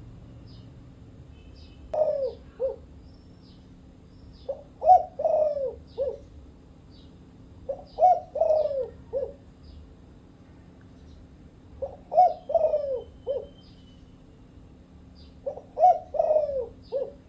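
Spotted dove of the Thai 'dragon-pattern' variety cooing: five phrases of several notes each, coming every three to four seconds. Faint high chirps of small birds sound in between.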